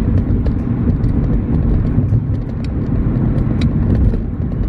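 Road and engine noise inside a moving car's cabin: a steady low rumble, with scattered faint clicks.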